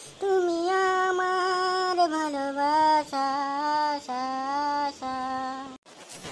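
A high voice sings a slow melody of about six long held notes with small slides between them, without clear words. It stops shortly before the end.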